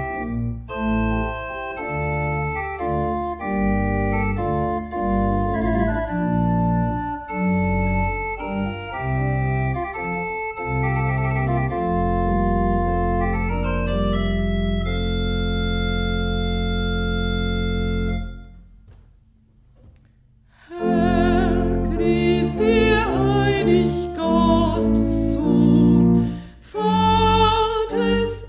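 Church pipe organ playing a chordal piece that ends on a long held chord, then falls quiet for about two seconds. Near the end a new piece begins: a solo melody with vibrato over organ accompaniment.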